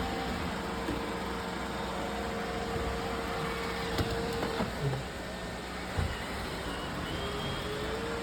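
Roomba robot vacuums running: a steady motor whir with a held hum, and a few sharp knocks about four and six seconds in.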